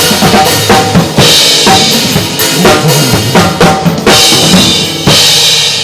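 Drum kit played along to the backing track of a pop song: kick drum, snare and cymbal hits in a steady beat. A last cymbal crash about five seconds in rings out and fades as the playing stops.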